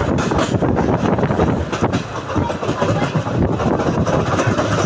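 Passenger train running on the rails, heard from inside a coach: a steady rumble of wheels and running gear mixed with wind, with a few sharp clicks. Loudness dips briefly a little after two seconds.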